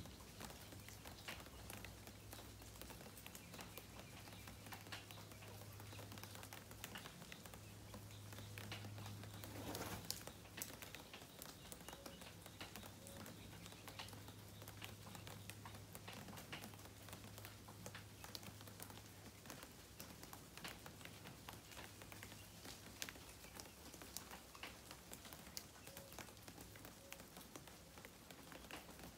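Faint patter of light rain and dripping water, many small scattered ticks over a low steady hum, with a brief louder swell about ten seconds in.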